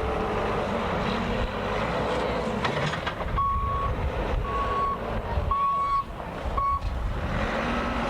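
A vehicle's reversing alarm beeping four times, about once a second, on one steady high pitch, over steady low-pitched noise.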